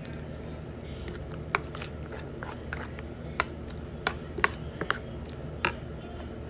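A spoon stirring a beaten egg mixture with chopped spring onions in a bowl, knocking against the bowl in about ten irregular clicks, with wet squelching between them, over a low steady hum.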